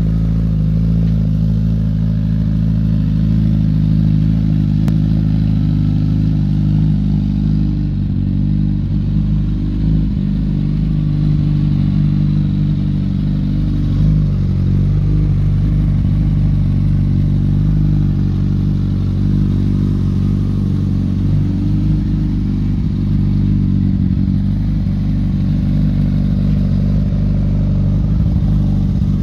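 Honda CBR1000RR Fireblade SP's inline-four engine idling steadily through a Yoshimura exhaust.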